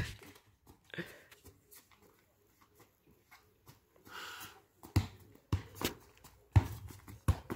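A soccer ball being kicked and bouncing on stone paving: a few sharp, separate thuds in the second half. A faint distant voice comes about four seconds in.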